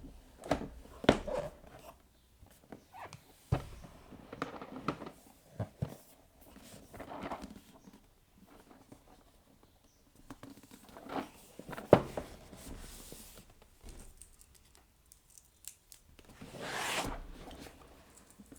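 Packaging of a keycap set being handled and opened: irregular clicks, taps and short rustles of plastic and cardboard, with a longer rustle near the end.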